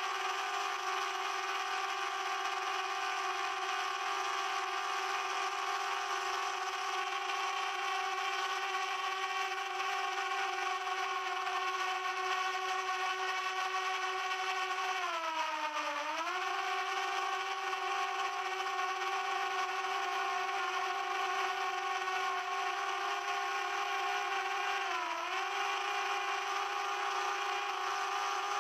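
Drone propellers and motors whining steadily in flight, a noisy pitched drone. The pitch dips and comes back up twice, about halfway through and again near the end, as the motors briefly slow.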